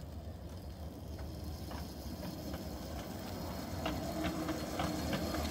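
Ride-on 5-inch-gauge garden railway train running along its track: a string of sharp clicks from the wheels over the rails, coming faster and louder as it approaches, over a low steady hum.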